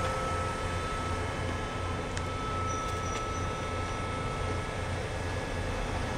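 Electric commuter train standing at the platform with its doors open, its onboard equipment running with a steady low hum and a thin constant high whine. Two faint clicks come about two and three seconds in.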